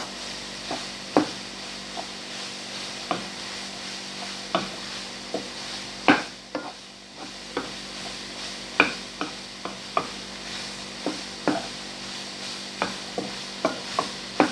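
Wooden spatula stirring and turning fusilli pasta in pesto in a hot frying pan: irregular knocks of the spatula against the pan over a steady sizzle.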